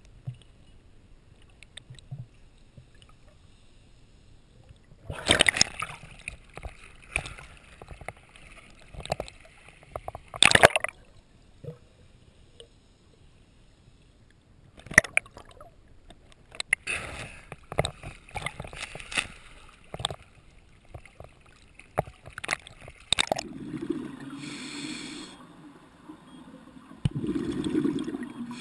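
Underwater bubbling and sloshing heard through a GoPro's waterproof housing, coming in irregular loud bursts a few seconds apart. About five seconds before the end it changes to a steadier low rumble with a pulsing hiss.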